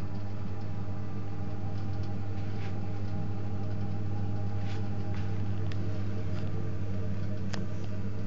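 Protherm Lynx 24 kW wall-hung gas boiler running: a steady low hum, with a few faint ticks.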